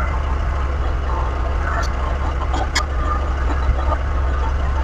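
Mahindra 2638 compact tractor's three-cylinder diesel engine running steadily under load while carrying a chicken coop on its forks, with a couple of sharp knocks about two to three seconds in.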